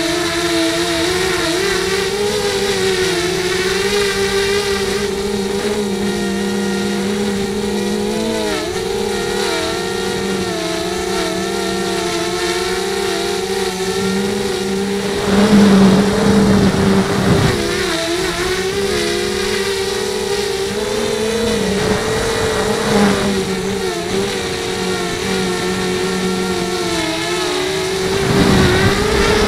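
Racing quadcopter's electric motors and propellers whining steadily, the pitch wavering up and down as the throttle changes. Three short bursts of rushing noise come in the second half.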